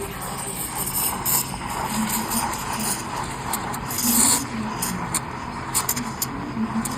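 Two-group espresso machine running: a steady low hum with short, sharp hisses and clicks over it, the biggest hiss about four seconds in.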